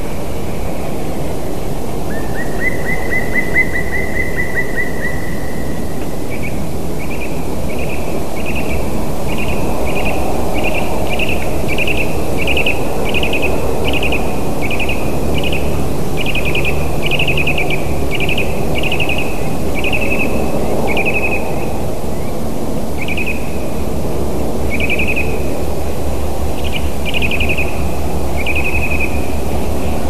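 Black woodpecker giving a long series of short, loud calls, repeated about once or twice a second and spacing out towards the end. A short rapid trill comes about two seconds in, over a steady low background rumble.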